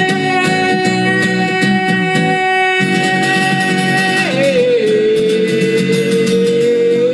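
End of a song: a sung note held for several seconds over guitar accompaniment, stepping down to a lower held note a little past halfway.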